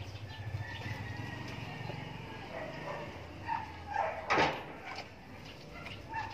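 A dog makes a few short vocal sounds in the second half, the loudest a sharp one about four seconds in, over a low steady hum.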